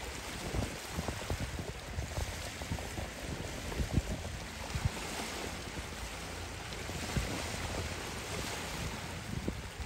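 Small waves breaking and washing over a rocky, stony shore in a steady hiss of surf, with wind buffeting the microphone in irregular low gusts.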